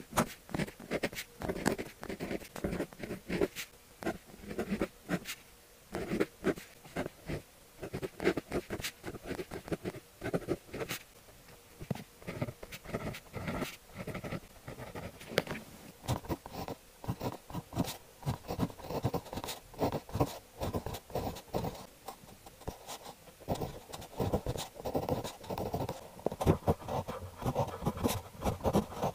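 Needle-tip technical pen (fineliner) scratching across paper in close-up, writing Chinese characters in quick, irregular strokes.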